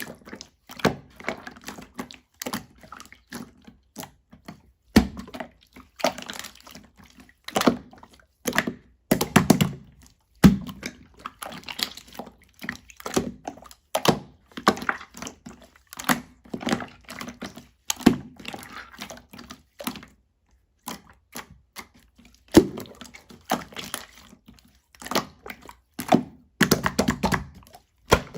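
Slime being squished and poked by hand, making irregular wet pops, clicks and squelches.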